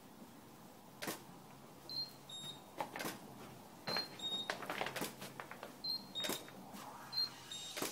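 A camera's short high double beeps, each a higher note followed by a slightly lower one, repeating about five times, with sharp shutter-like clicks scattered between them.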